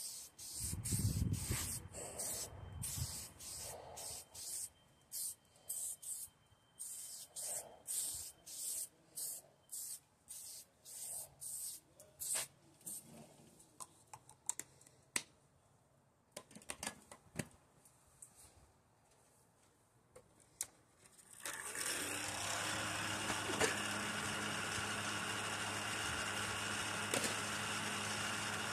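Quick repeated swishes of a cloth wiping over a plastic headlight lens, about two strokes a second, which then stop. About three-quarters of the way through, a steady machine hum with a hiss sets in.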